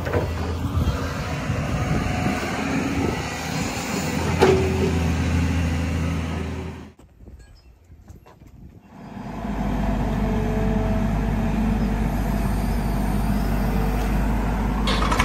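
Radio-controlled construction models running with a steady motor hum. The hum breaks off into a short lull about seven seconds in, then comes back steady at a deeper pitch.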